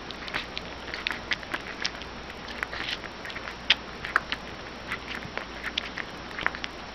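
Newborn puppy suckling milk from a baby bottle: a run of irregular wet clicks and smacks of its mouth working on the teat.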